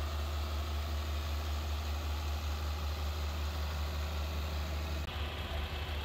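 A John Deere 4840 tractor's six-cylinder diesel engine running steadily at low speed as it drives past, with a strong low hum. About five seconds in the sound changes abruptly to an older John Deere diesel tractor going by.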